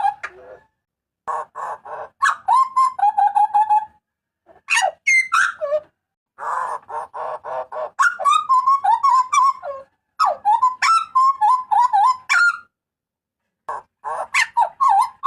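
Hooded butcherbird (jagal papua) giving its loud, shrill calls: bouts of rapid, harsh chattering notes with sharp whistled glides, several phrases broken by short pauses.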